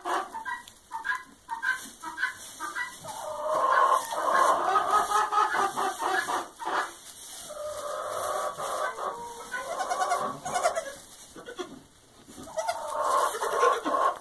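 Barnyard animals calling: a run of short repeated calls, then longer, wavering calls that come three times.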